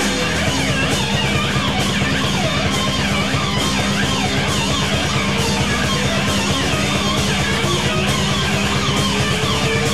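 Rock music: electric guitar playing quick, wavering lead lines over bass and drums that keep a steady beat.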